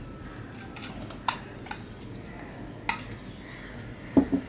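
Stainless steel bowl and plate clinking as food is tipped from the bowl onto the plate: sharp metallic taps about a second and about three seconds in, then a louder ringing clunk near the end as a steel bowl is set down.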